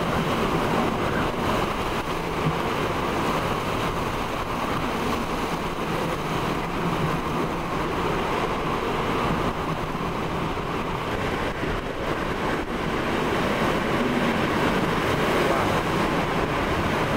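Hurricane-force wind driving heavy rain across a street, a dense steady rushing noise that swells slightly in the last few seconds.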